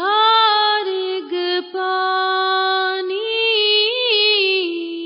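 A single voice singing a devotional shabad in long held notes without clear words, with slow gliding ornaments between pitches near the end.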